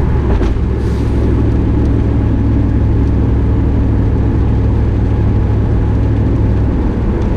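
Steady low drone inside the cabin of a 1993 Chevrolet Camaro Z28 cruising on the highway: its 5.7-litre LT1 V8 engine and road noise, even throughout with no change in revs.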